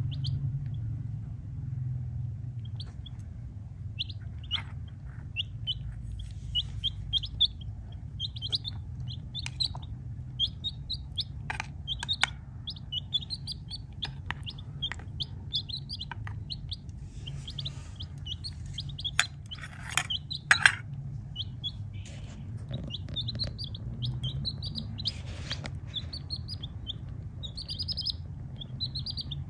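Baby chicks peeping over and over, short high peeps, with a few sharp clicks and taps, the loudest about two-thirds of the way through, over a low steady hum.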